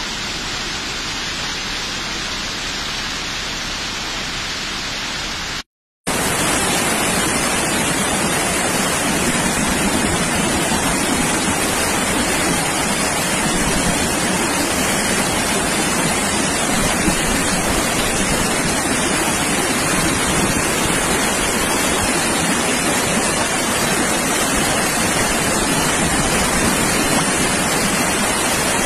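Floodwater rushing through a street, a steady dense noise of churning water. It cuts out for a moment about six seconds in and comes back louder and hissier.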